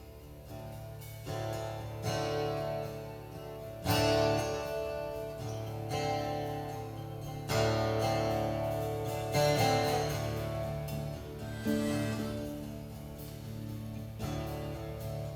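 Guitars strumming chords over a sustained bass line, each chord struck about every two seconds and left to ring out: the instrumental opening of a slow rock song.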